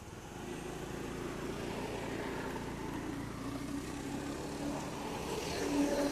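Motor vehicle engine hum passing, building up within the first second and loudest near the end.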